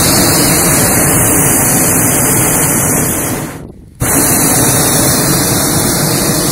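Hot-air balloon's double propane burner firing in two long blasts: the first dies away a little past three seconds in, and after a short pause the second starts abruptly about four seconds in.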